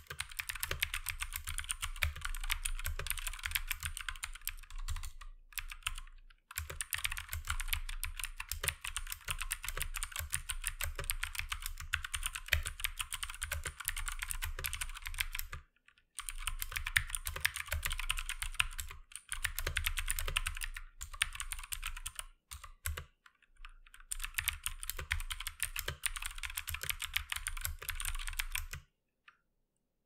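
Fast typing on a Keychron K2 hot-swappable mechanical keyboard with an aluminium frame and blue clicky switches: a dense stream of sharp key clicks with a few brief pauses, stopping about a second before the end.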